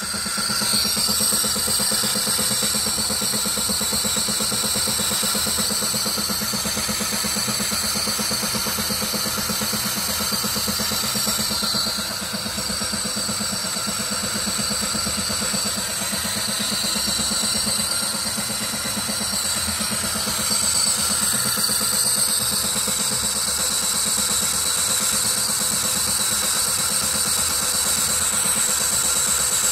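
Metal lathe running steadily at about 500 rpm, turning a brass part, with a steady high whine over the motor and spindle hum.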